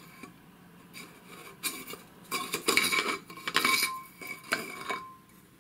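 Cylindrical metal housing cover of a Smiths vertical gyro unit being worked off its frame by hand, scraping and clinking metal on metal, with the can ringing faintly after the knocks. The handling is loudest in the middle and dies away near the end.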